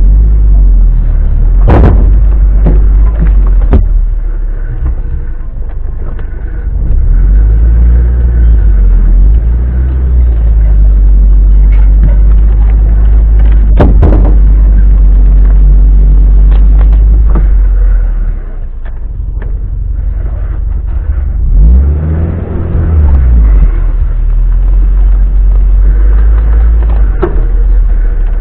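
Off-road vehicle's engine running at low speed over a rough forest track, heard from inside the cab as a heavy low rumble. Sharp knocks stand out about 2 s, 4 s and 14 s in, and the engine revs up briefly about 22 s in.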